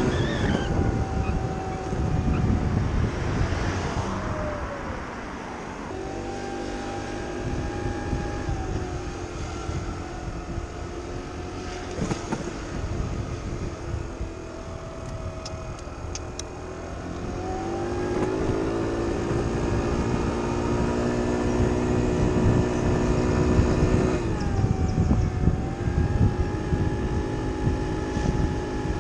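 Kymco Agility City 50cc four-stroke scooter engine running under way, with wind rumbling on the microphone. Its pitch drops as it slows a few seconds in and again near the middle, climbs as it speeds up past the middle, and dips once more toward the end.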